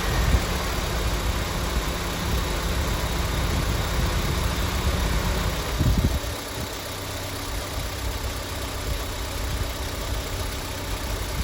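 Car engine running at a raised steady speed, about 1,500 RPM, under full electrical load for an alternator charging test. About six seconds in it settles to a lower, slightly quieter idle.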